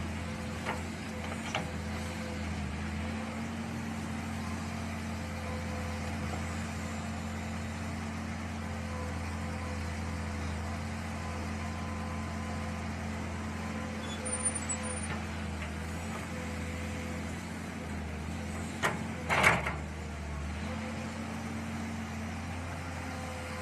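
Mini excavator engine running steadily at an even pitch, with a few light clicks and two sharp knocks about four-fifths of the way through, the loudest sounds.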